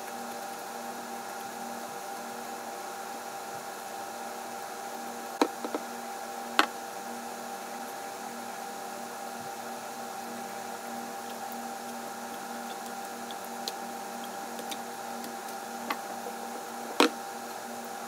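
A few sharp clicks and smacks from eating pad thai noodles with wooden chopsticks, two close together about a third of the way in and the loudest near the end, over a steady background hum.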